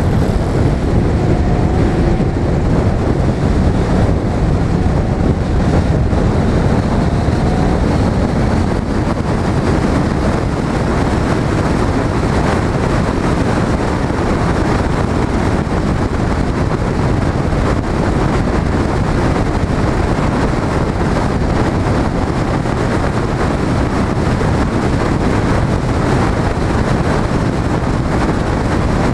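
A steady rush of wind buffeting the microphone of a camera mounted on the front of a Porsche 911 driving at road speed, with the car's road and engine noise underneath.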